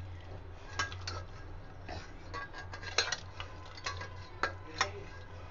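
Metal spatula clinking and scraping against the inside of a pressure cooker while lifting boiled mutton out of its cooking water: a string of sharp, irregular metal clinks.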